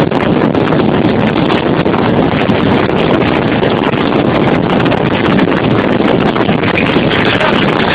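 Steady, loud wind and road noise buffeting the camera's microphone inside a moving car.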